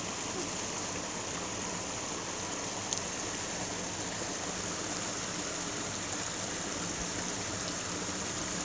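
Small stream flowing steadily: a constant, even rush of running water.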